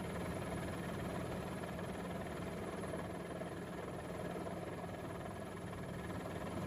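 Steady engine drone with a constant low hum.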